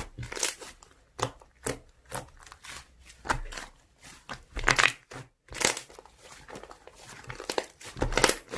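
Slime being squeezed and pressed by hand, making irregular crackling, squishy pops.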